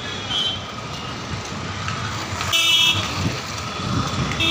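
Street traffic noise with a short vehicle horn honk a little past halfway through, the loudest sound. A fainter brief toot comes near the start.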